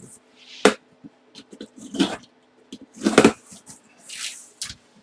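Mystery box being opened and its contents handled: a few sharp knocks and bumps, about a second apart, with short stretches of rustling. A faint steady electrical hum runs underneath.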